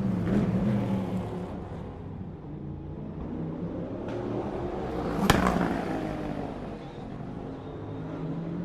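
Le Mans race cars going by at a distance, engines downshifting into a corner, with the engine pitch dropping as a car passes. A sharp crack about five seconds in, as one car goes by loudest.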